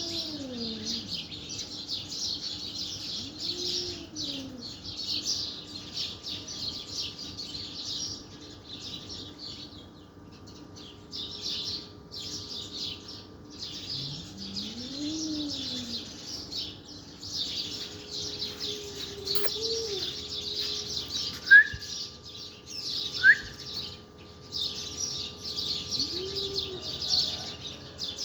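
Many small birds chirping densely, with brief pauses. A few drawn-out lower calls rise and fall over about a second each, and two sharp, short calls stand out loudest about two-thirds of the way through.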